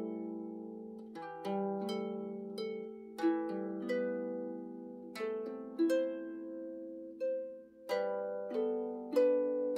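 Celtic harp playing a slow, gentle melody: notes plucked every half second or so over lower sustained notes, each left ringing and fading.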